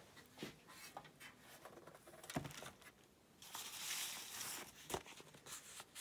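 Fabric scraps rustling and being pulled out of a tray of fabric by hand, with a stretch of rustling about three and a half seconds in and a couple of soft knocks.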